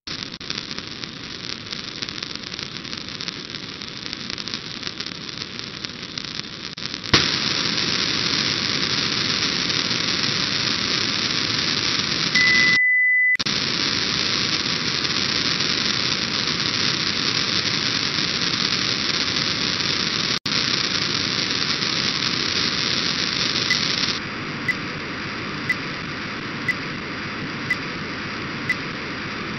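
Hiss and static from a software-defined radio receiver tuned to an Orbcomm satellite downlink near 137.7 MHz. The hiss jumps louder about seven seconds in and is broken midway by a short steady beep and a brief dropout. It then settles quieter, with a faint tick about once a second near the end.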